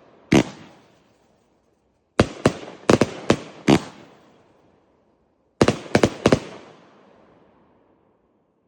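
Riakeo Poseidon firework going off in sharp bangs: one bang, then a rapid cluster of about six bangs a couple of seconds in, then four more near the end, each trailing off in a fading echo.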